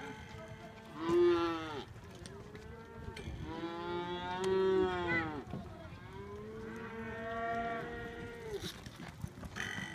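Cattle mooing: about four calls, a short loud one, a weaker one, then two long drawn-out bawls that rise and fall in pitch.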